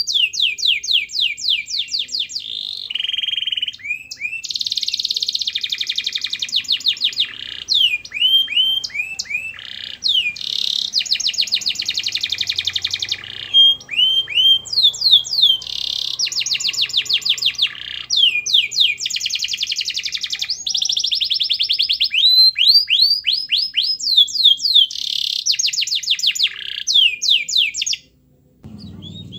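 Domestic canary singing a long, nearly unbroken song of fast trills, each run made of quickly repeated rising notes and switching to a new trill every second or two. The song stops shortly before the end.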